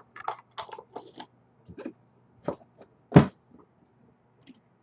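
Card packaging and box being handled: a string of short clicks and rustles, with one loud thump about three seconds in.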